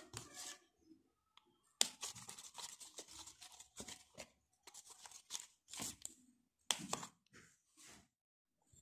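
Plastic spoon stirring and scraping around a plastic bowl of thick screen-printing paste, in short irregular strokes.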